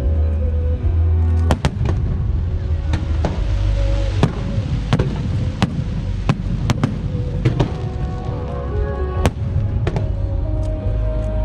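Fireworks bursting overhead: irregular sharp bangs and cracks, several every second, over music with a heavy bass line.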